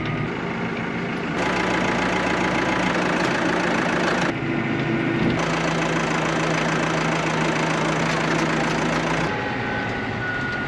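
Vehicle engine running steadily, with road or motor noise that shifts abruptly a few times.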